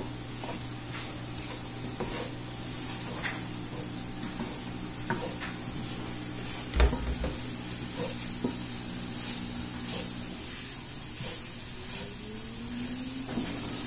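Diced vegetables sautéing in butter in a skillet, sizzling steadily, with a wooden spatula scraping and knocking against the pan now and then. One louder knock with a dull thud comes about seven seconds in.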